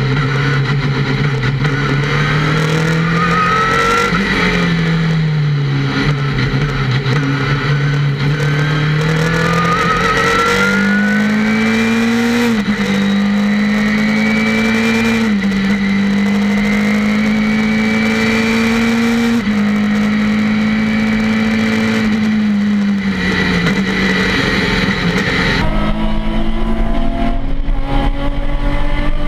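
Race car engine at racing speed, heard inside the cockpit. Its pitch falls and climbs with the car's speed and jumps in sudden steps. About 26 seconds in, the sound changes abruptly to another car's engine.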